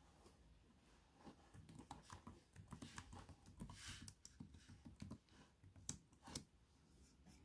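Faint typing on an HP Chromebook laptop keyboard: a run of soft key clicks starting about a second in, with two louder clicks near the end.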